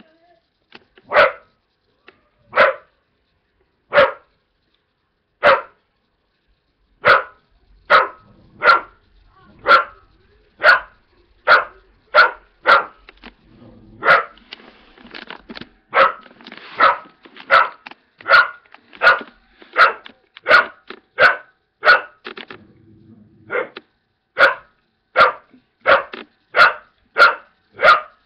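A dog barking at the television. The single barks come about a second and a half apart at first, then quicken to a steady run of roughly one bark a second.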